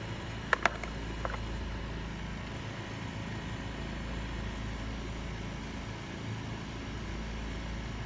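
Steady low mechanical hum of an outdoor heat pump unit, with two sharp clicks about half a second in and a fainter click just after a second.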